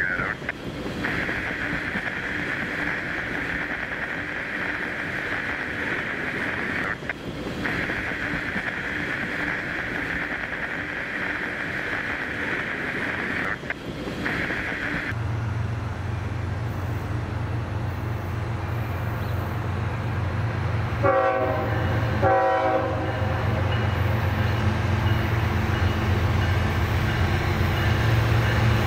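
Diesel freight locomotive arriving: its engine rumble comes in about halfway and builds, with two short horn blasts a little later. Before it arrives, a steady high buzz.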